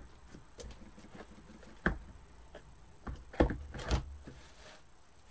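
Wire-edged ribbon being handled and looped on a wooden peg bow jig: scattered light taps, clicks and rustles, with a single tap about two seconds in and a tight cluster of the loudest taps a little past three seconds.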